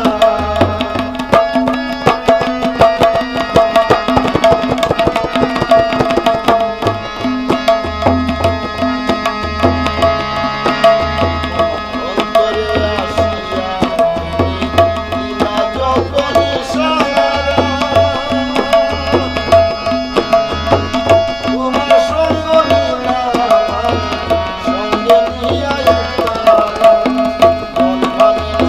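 Harmonium and hand drum playing folk music together: the harmonium holds steady sustained chords while the drum keeps a busy rhythm with deep bass strokes at a regular pulse.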